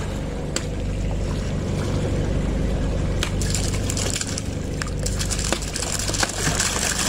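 Water splashing and sloshing at the surface as a whale shark feeds beside the boat, growing louder about five seconds in, over a steady low engine hum.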